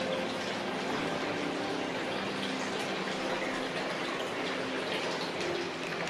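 Hot-spring water running steadily into a bath, a continuous splashing pour.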